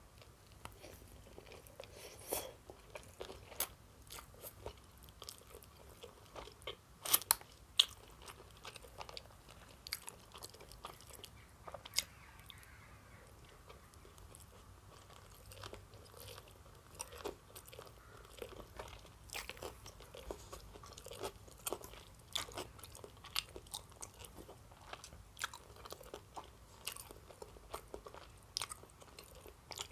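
Close-miked chewing of a mouthful of food, with irregular sharp clicks and smacks from the mouth, the loudest a few about seven to eight seconds in.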